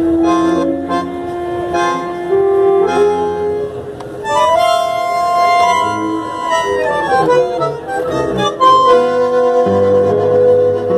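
Live tango ensemble music: two bandoneons play sustained, reedy chords and melody, backed by violin and double bass. A brighter passage of high held notes comes in about four seconds in.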